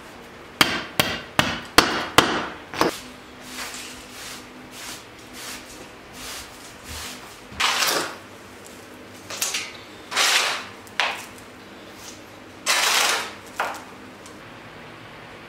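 Hammer striking old plywood flooring about eight times in quick succession, breaking it up. After a pause come a few softer scrapes and rustles of debris being gathered.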